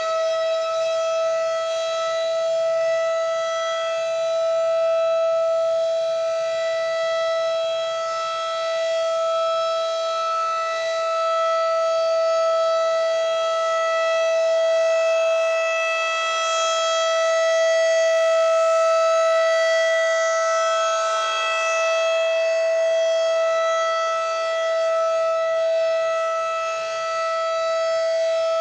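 Civil defense tornado warning siren sounding its weekly test as a steady single-pitch tone, its loudness swelling and fading gently every few seconds.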